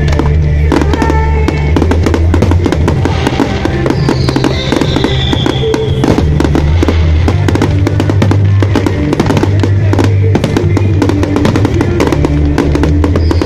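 Fireworks bursting and crackling in a dense, irregular stream of pops and bangs over loud music with a heavy bass line, as in a pyromusical show.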